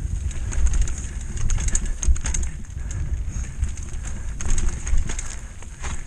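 Mountain bike rolling fast down a rocky trail: irregular knocks and rattles from the tyres, chain and frame bouncing over stones. Under them is a steady low rumble of wind on the helmet-camera microphone.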